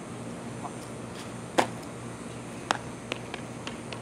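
One sharp snap about one and a half seconds in, followed by four or five fainter clicks, over a steady low outdoor hum.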